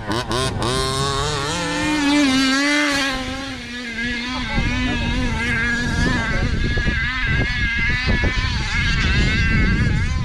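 Radio-controlled basher car being driven, its motor running with the pitch rising and falling as the throttle is worked, with a few sharp knocks in the first half-second.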